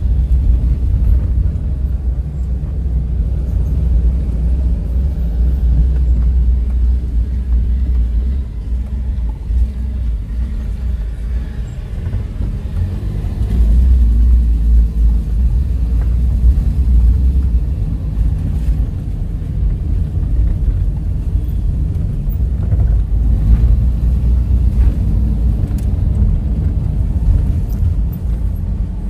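Low, steady rumble of a car driving along a rough road, heard from inside the cabin, with a few light knocks from bumps in the second half.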